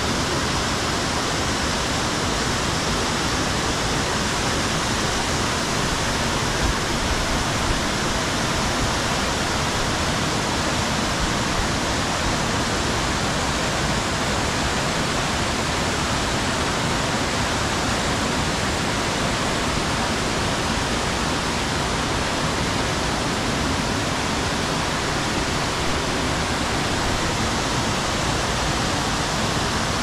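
Steady rush of water from a waterfall and a mountain stream tumbling over boulders.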